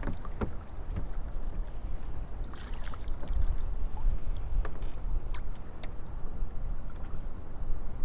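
Water lapping and splashing around a kayak, with a steady low rumble and scattered small clicks and knocks.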